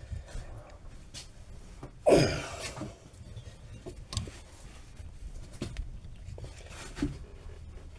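Hand tools working an easy-out screw extractor into a steel swing-arm bushing that is rusted solid: scattered small metal clicks and creaks, with one short groan falling in pitch about two seconds in.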